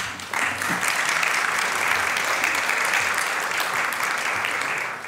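Audience applauding steadily, beginning a moment after the start.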